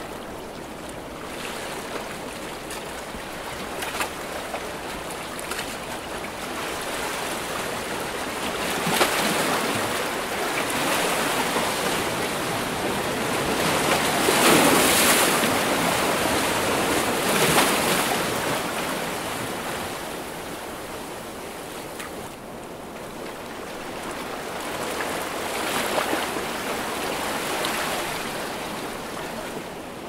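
Ocean surf: waves washing in and breaking in slow surges, each rising to a peak and falling away over several seconds. The loudest surge comes about halfway through.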